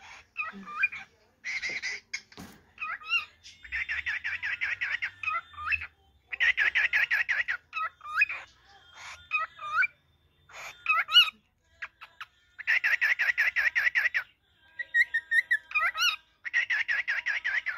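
Male cockatiel singing: repeated bouts of rapid, stuttering chatter, each about a second long, alternating with short rising and falling whistles.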